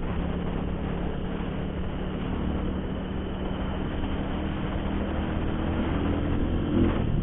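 Motorcycle engine running steadily at cruising speed, heard from on the bike with a heavy rush of wind and road noise over it. Near the end the engine note rises briefly as the throttle opens.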